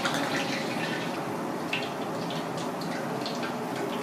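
Broth simmering in an aluminium saucepan on a gas burner: a steady bubbling with small scattered pops.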